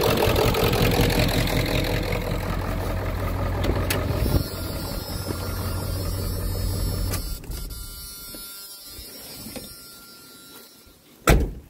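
1995 Ford F-350's 7.3 L Powerstroke turbo diesel V8 idling, then switched off about four seconds in and running down to a stop; it is shut down because it is out of coolant, with the water pump taken to be gone. One loud thump near the end.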